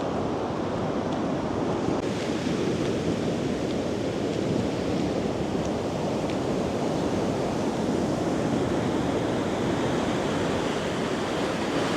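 Heavy ocean surf breaking and washing in: a steady, continuous rush of big waves, with some wind noise on the microphone.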